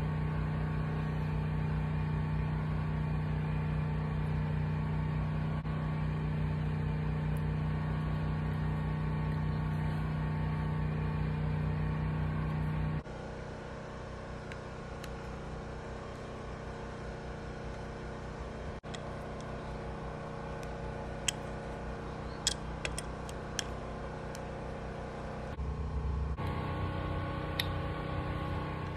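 A steady machine hum with several fixed tones, dropping to a lower, different hum about halfway through and coming back near the end. A few small sharp clicks come together partway through.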